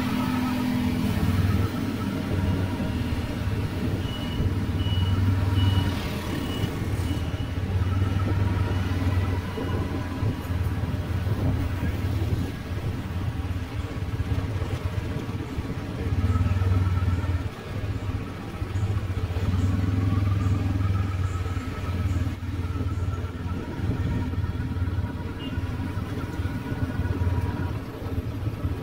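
Motorbike engine running steadily while riding through city street traffic. Its low hum swells and eases, with other motorbikes and cars around.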